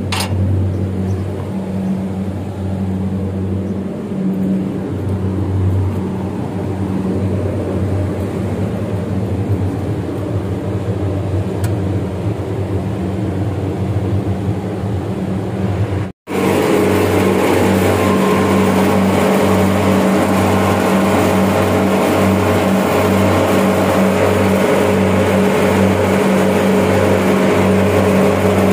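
York reciprocating chiller running with a steady mechanical hum and a slight regular pulsing. After a short break about halfway through, it sounds louder and fuller, with more hiss.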